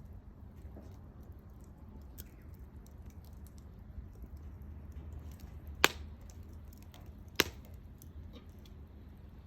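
Wood fire crackling: scattered faint ticks and two sharp pops, the first about six seconds in and the second a second and a half later, over a low steady rumble.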